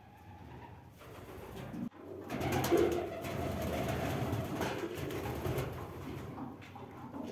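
Pigeons cooing, faint at first and much louder from about two seconds in.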